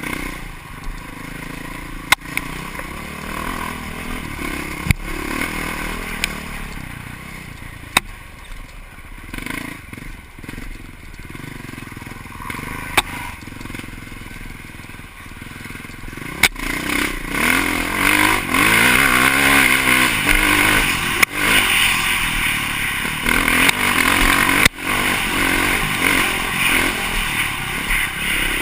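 Off-road vehicle engine running under load over rough ground, with scattered knocks and clatter. About halfway through it gets louder, and about two-thirds of the way in the revs rise and fall.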